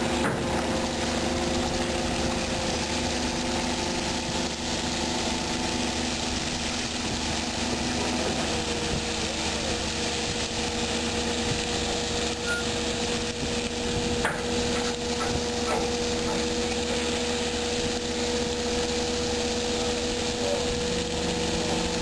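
Water splashing and pouring off a box sampling dredge as it is hoisted out of the sea on its cable, draining seabed mud, over the steady hum of the ship's machinery.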